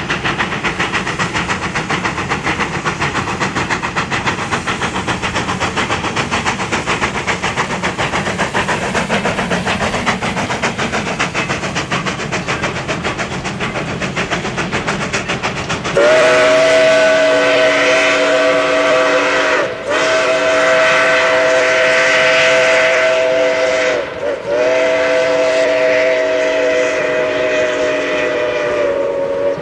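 Baldwin 2-8-2 steam locomotive running with a dense, fast-rhythmed working noise. About halfway through it sounds its whistle, a chord of several notes, in three long blasts with two short breaks, louder than the running noise.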